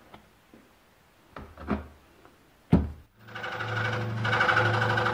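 A few soft thumps and a sharp knock, then an electric scroll saw starts about three seconds in and runs steadily with an even pulsing hum, getting louder about a second later as it takes up its work on the veneer packet.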